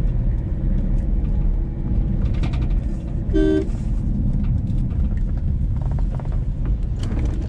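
Steady low rumble of a car's engine and tyres heard from inside the cabin, with one short car horn toot about three and a half seconds in.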